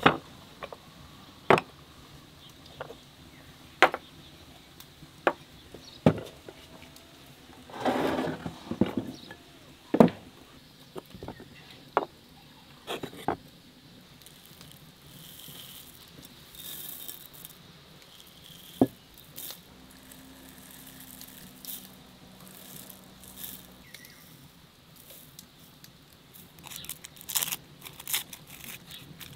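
Clay spice pots and their lids knocking sharply on a wooden table, about a dozen separate clacks. Coarse salt is poured from a clay bowl into a stone mortar, and near the end cilantro seeds crackle as they are crumbled into it by hand.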